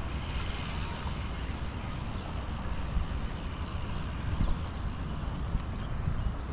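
Steady low rumble of wind buffeting the microphone, with a brief high-pitched tone about three and a half seconds in.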